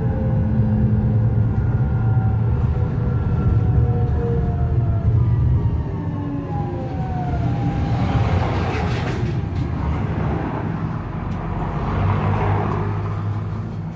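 MGT6D low-floor tram's electric traction drive whining in several tones that fall steadily in pitch as the tram slows, over a steady low hum. In the second half a louder rushing noise of the running gear rises and falls.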